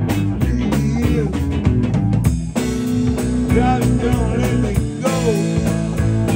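Live rock band playing: electric guitar and drum kit, with a man singing into a microphone. About two seconds in the band breaks off briefly, then comes back in on a held chord.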